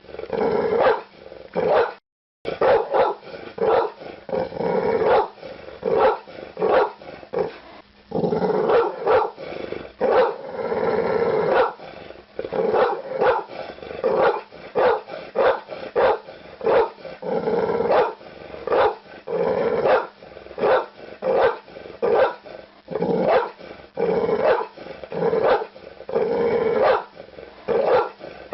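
Pit bull barking over and over, about one or two barks a second, running into a longer unbroken stretch about a third of the way in. The sound cuts out completely for a moment about two seconds in.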